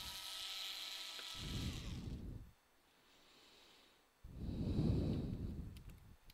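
Cordless electric screwdriver whirring for about a second and a half, then winding down, as it backs a screw out of a laptop motherboard. Two low rushes of noise follow, the louder one about five seconds in.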